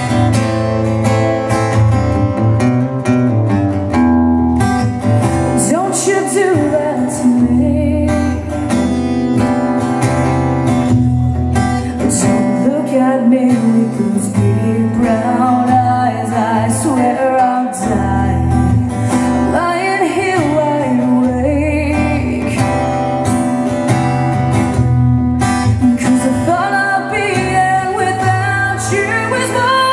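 A woman singing over her own strummed acoustic guitar; the guitar plays alone for the first few seconds and her voice comes in about five seconds in.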